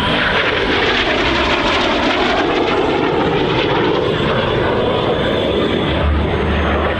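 Aermacchi MB-339 jet trainers passing overhead with a loud, steady jet rush. A sweep in pitch falls and then rises again as they go by.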